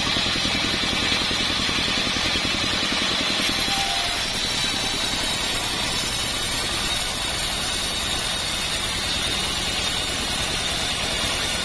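Engine of a homemade mobile band sawmill running steadily, driving the band saw without a cut under way, with a fast even low pulsing and a steady high whine.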